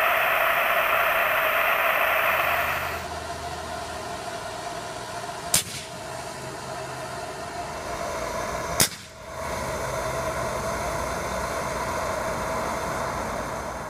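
A propane torch burning with a steady hiss, which drops away about three seconds in. Then two sharp pops a few seconds apart: the plug blowing out of a sealed Pyrex test tube of superheated gummy bears as the contents flash.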